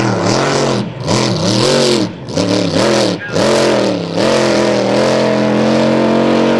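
Racing boat engine at high revs, its pitch dropping briefly and recovering about four times, then holding steady at high revs from about four seconds in.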